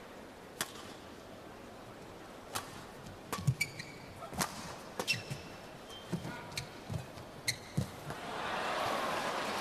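Badminton rally: rackets striking the shuttlecock in sharp cracks about once a second, with shoes squeaking and feet thudding on the court between shots. About eight seconds in, the crowd breaks into applause.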